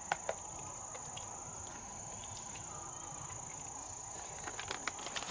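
Insects trilling in one steady high-pitched tone, with a few soft clicks and rustles just after the start and again near the end.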